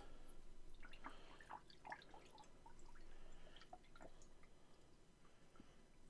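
Faint dripping and trickling of red-dyed coolant poured from a plastic jug into a metal funnel on the fill tube of a PC custom water-cooling loop, as scattered small drips that thin out near the end.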